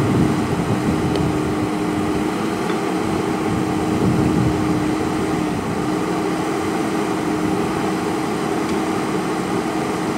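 JCB backhoe loader's diesel engine running steadily, a constant droning hum that swells slightly near the start and again about four seconds in.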